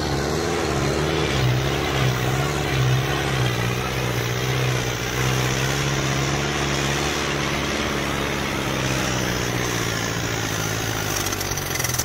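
Mahindra Arjun 605 tractor's diesel engine running steadily under heavy load while dragging a disc harrow through soil.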